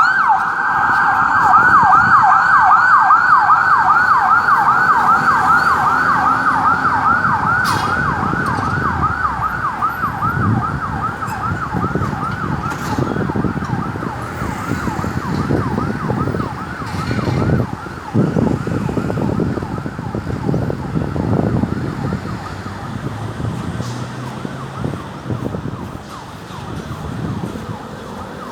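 Ambulance siren on the fast yelp tone, a rising wail repeated about three times a second, growing gradually fainter, over low traffic noise.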